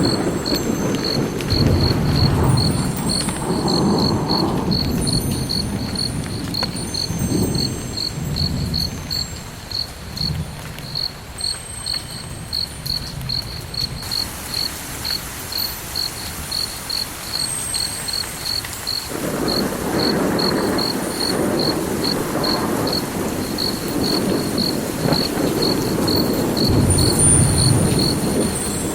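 Cricket chirping in a steady, evenly spaced high pulse, a few chirps a second, over a low rumble that swells and fades, quieter in the middle. Short, faint high tones sound near the start and the end.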